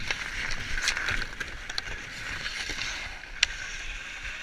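Hockey skate blades scraping and carving across outdoor ice as players skate, a steady hiss. A few sharp clicks sound over it, the loudest a little past the middle.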